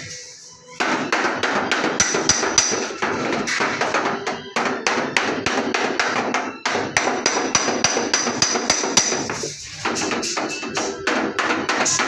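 Rapid hammering on sheet metal, several blows a second with a ringing metallic edge. It starts about a second in and has a short break late on.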